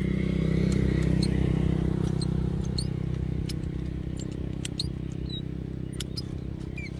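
A steady low engine-like drone, loudest about a second in and slowly fading. Scattered short, sharp high clicks and a few faint chirps run over it.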